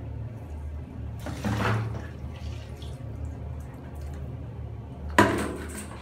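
Soapy water sloshing in a plastic basin, then poured out onto a tiled floor with a sudden loud splash near the end.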